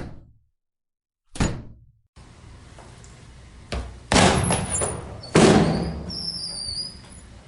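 A series of door slams, each a separate recording: a sharp bang about a second and a half in, then, over a steady background hiss, a lighter knock and a heavier slam, with the loudest slam a little past the middle.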